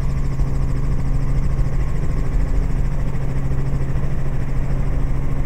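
Robinson R44 helicopter heard from inside the cabin: a steady, loud drone of its six-cylinder piston engine and rotor, with a low hum and fast, even rotor pulsing.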